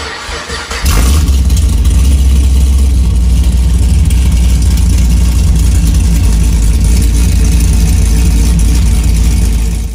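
Loud engine sound, a deep steady rumble that starts abruptly about a second in and cuts off suddenly at the end.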